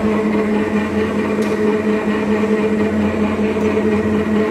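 Bar thread rolling machine running with a steady, even hum.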